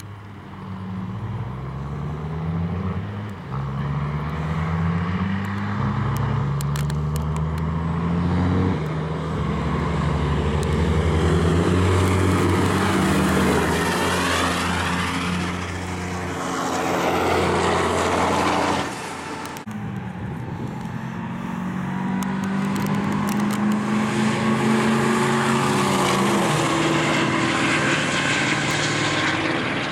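Diesel semi-truck engines at full throttle on a drag-strip launch, their pitch climbing and dropping back at each upshift. About two-thirds of the way through, the sound cuts off abruptly and another run begins, its engine again climbing through the gears.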